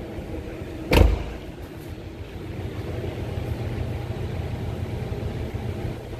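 A 2007 Porsche Cayman S door shut with a single solid thump about a second in, followed by a steady low hum.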